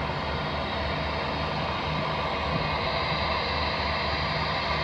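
Airbus A319 jet engines running at taxi power as the airliner rolls and turns: a steady rushing hiss with a faint high whine, under a low throbbing hum.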